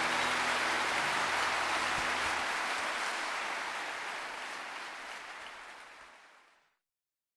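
Audience applauding after a live song, fading out steadily over about six seconds and then cutting to silence.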